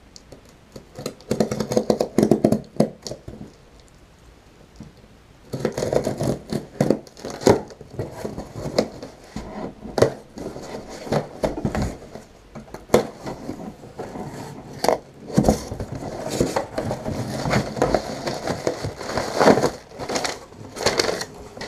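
Cardboard shipping box being opened by hand: tape slit and pulled, flaps scraped back, with irregular clicks, scraping and rustling of cardboard and packaging. There is a quieter pause a few seconds in, then steady rustling and scraping.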